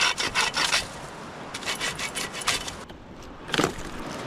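Hand saw cutting through firewood in quick back-and-forth strokes: a run of strokes, a short pause, another run, and one last stroke near the end.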